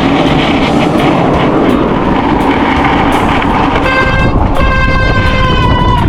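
Strong wind buffeting the microphone of a camera on a moving bicycle, a loud, steady rush with heavy low rumble. About four seconds in, a high steady tone sounds twice, the second time for over a second.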